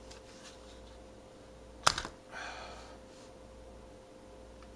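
A single sharp plastic clack about two seconds in, followed by a brief scraping rustle, as a head-worn magnifier visor is set down on the table.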